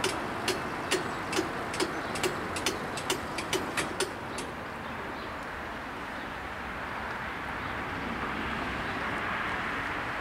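Level crossing bell striking about twice a second, then stopping about four seconds in once the barriers are up. Afterwards a steady road-traffic hum that grows slightly as a car approaches.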